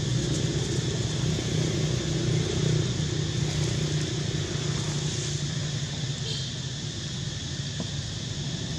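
A steady low motor rumble, slowly getting quieter, over a constant high hiss.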